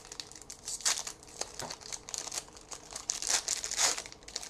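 Wrapper of a trading card pack being torn open and crinkled, an irregular run of crackles.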